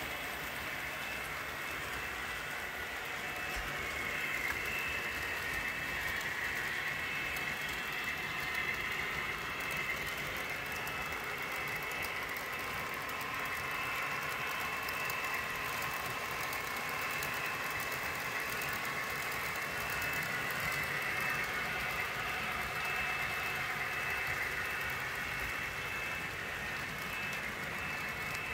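Several model train locomotives running on a layout: a steady whir of their small electric motors with a high whine, and the rolling of their cars along the track.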